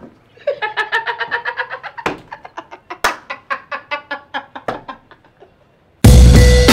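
A man laughing heartily in quick, repeated bursts that taper off; near the end, drum-heavy music cuts in suddenly and loudly.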